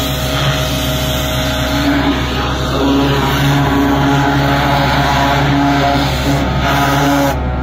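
Drain-cleaning truck's machinery running loudly and steadily: a constant engine-like hum with a rushing hiss over it. The hiss drops away suddenly near the end while the hum carries on.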